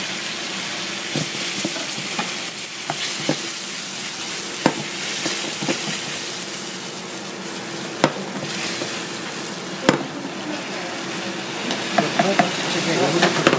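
Chili sauce with garlic sizzling in a nonstick frying pan while a wooden spatula stirs and scrapes it, with a few sharp knocks of the spatula against the pan.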